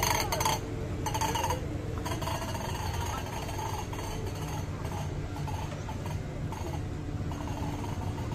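Outdoor ambience: a steady low rumble with faint, scattered distant sounds, and a few sharp clicks in the first half second.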